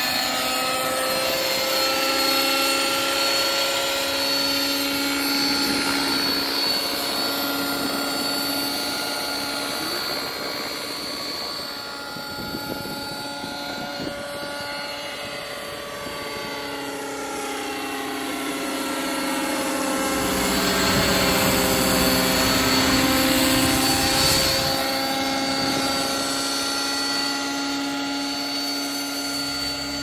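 Radio-controlled scale helicopter in flight: a steady whine of motor and rotor made of several tones whose pitch slides down and back up as it flies about. It fades somewhat midway and grows louder again about two-thirds of the way through.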